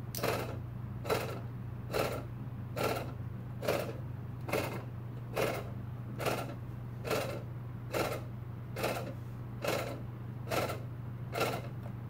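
12-volt car tyre air compressor run from a wall-outlet power supply, chugging in short, even pulses a little more than once a second over a steady low hum instead of running smoothly. It is cycling, which the owner puts down to the supply not giving it enough current.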